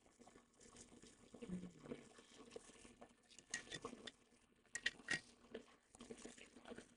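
Faint, scattered small clicks and taps of hand tools on the workbench during motherboard rework, with a few sharper ticks a little past the middle.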